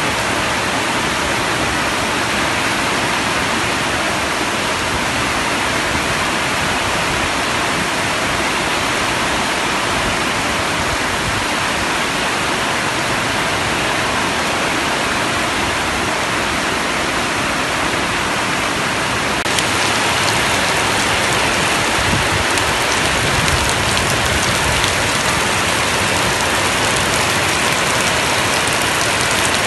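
Steady rain falling. About two-thirds of the way through it turns slightly louder and crisper, with individual drop hits standing out.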